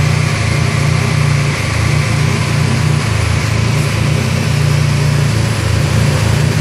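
Turbocharged Mazda RX-7 FD3S's rotary engine running steadily at idle on a chassis dyno, with a choppy, uneven low note and no revving.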